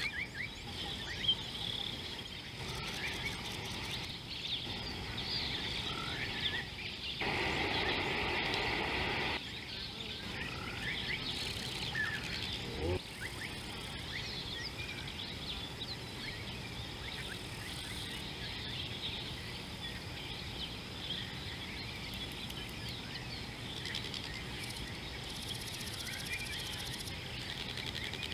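Outdoor bush ambience: many small birds chirping and twittering over a steady background hiss. About seven seconds in, a louder stretch of noise lasts about two seconds.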